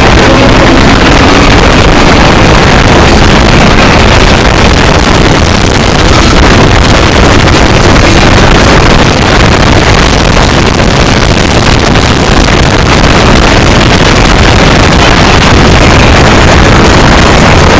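Car engine and wind noise heard from inside the cabin at track speed: a loud, steady, distorted roar that overloads the microphone.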